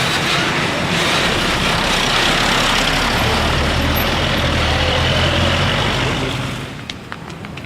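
Large tour bus passing close by: loud engine and tyre noise that falls away suddenly about six and a half seconds in.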